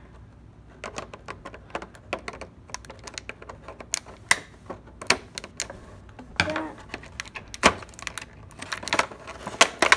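Scissors snipping through a clear plastic blister tray, with the thin plastic crackling as it is bent and pulled apart by hand. It comes as a string of sharp, irregular clicks.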